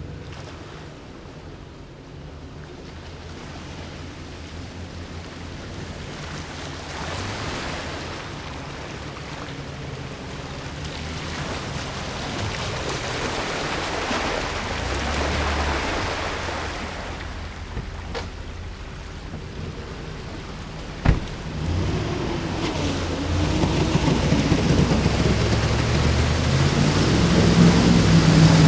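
Off-road vehicles driving through a muddy, water-filled trail. A Jeep Wrangler passes close by near the middle. Then a Ford F-150 pickup comes on through the mud hole, its engine revving up and down and getting louder toward the end, with water and mud sloshing under the tyres and one sharp knock about two-thirds of the way through.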